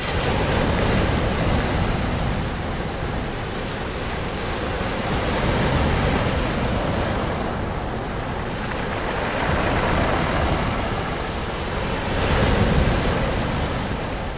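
Ocean waves washing onto a shore, a steady rush of surf that swells and eases every few seconds, with four crests in a row.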